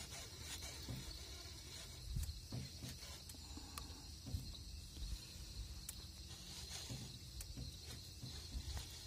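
Night insects chirring steadily in a high, even band, with irregular low bumps and knocks from handling in the aluminium boat and a few faint clicks.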